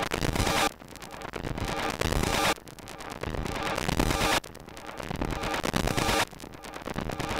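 Electronic synthesizer music with a harsh, static-like noise texture. Each phrase builds in level and then cuts off abruptly, repeating about every two seconds.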